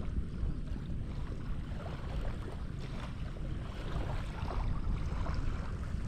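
Wind buffeting the microphone in a steady low rumble, with water lapping and splashing.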